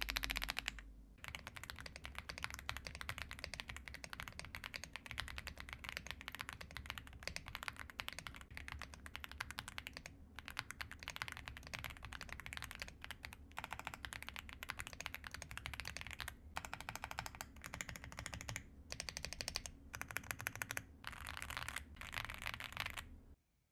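Fast typing on a mechanical keyboard, a dense run of muted key clacks with a few brief pauses, the soft 'creamy' sound the keyboards are tuned for. It stops abruptly near the end.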